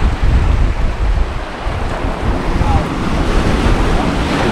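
Strong wind buffeting the microphone in a steady, gusting rumble over the wash of surf at an ocean inlet.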